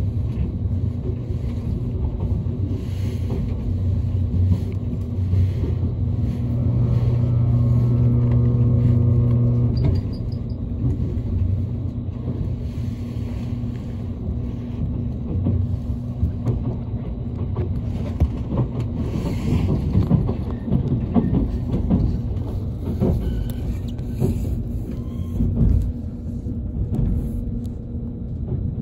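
Interior running noise of a JR Kyushu 787 series electric train: a steady rumble of wheels on rail under a low hum that grows stronger, then drops away about ten seconds in, leaving an uneven rumble.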